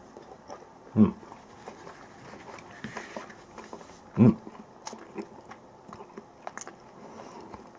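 A person eating canned mackerel with chopsticks: chewing and small clicks of chopsticks against a paper bowl. Two short voiced 'mm' sounds come through, about a second in and again about four seconds in.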